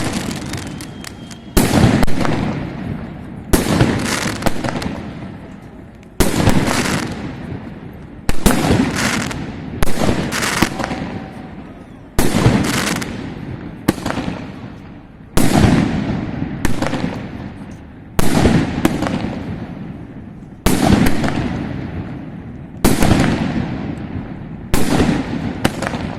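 Aerial fireworks shells bursting: about a dozen loud bangs, roughly one every two seconds, each trailing off in a rumbling, crackling echo.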